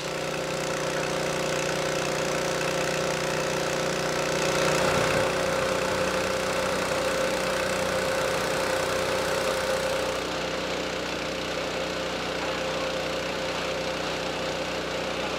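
An engine running steadily at constant speed, giving a continuous hum with several fixed tones over a rushing noise.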